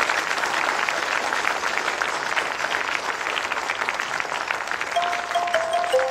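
Applause from a crowd, many hands clapping steadily. About five seconds in, a few short electronic tones begin, stepping down in pitch.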